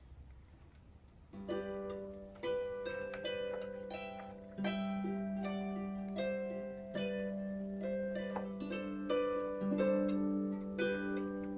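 Background music of plucked harp-like notes over a sustained low note, starting about a second and a half in after a short near-quiet stretch.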